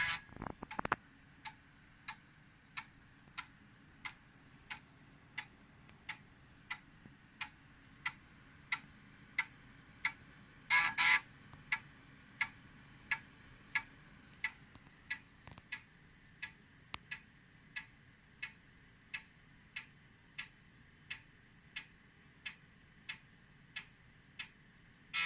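5.25-inch PC floppy drive's head stepping track by track as it reads a Commodore 1541 disk, a single sharp click about every two-thirds of a second. About halfway through there is a short, louder buzzing burst.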